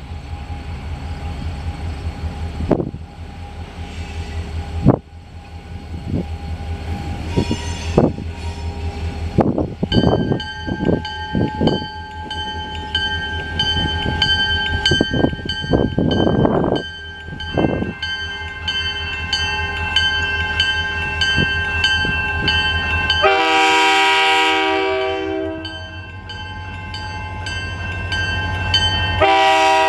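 EMD SD40-2W diesel-electric locomotive running at low speed, a steady low engine rumble broken by sharp metallic clanks. A grade-crossing bell starts ringing about a third of the way in, and near the end the locomotive's horn sounds two long blasts, the second still going at the end.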